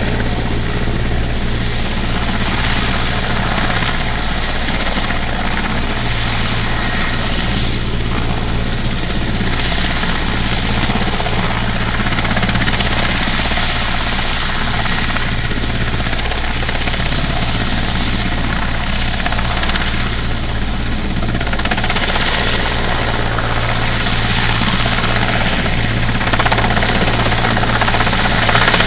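Military transport helicopter hovering low, its rotor and engines running with a steady, continuous drone.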